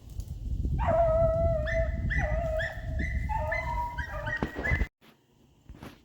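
Rabbit-hunting dogs baying on a cottontail's trail: a run of about six drawn-out bawls, one after another, over a low rumbling noise. The sound cuts off suddenly near the end.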